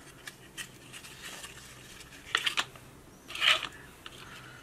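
Cardstock being handled and pressed together: light scattered paper rustles and clicks, with two brief louder rustles a little past halfway.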